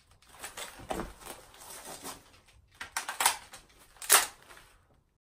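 Replica Howa Type 89 rifle being reloaded by hand: a series of rattles and clicks as the magazine is handled, then sharp snaps about three and four seconds in, the last the loudest.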